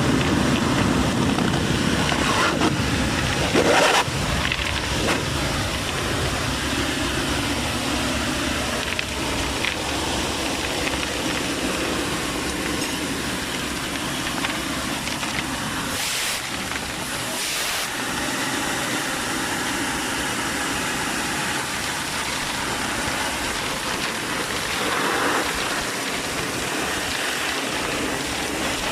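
Vacuum excavator running, a steady rushing noise of engine and suction, with a sharp louder moment about four seconds in.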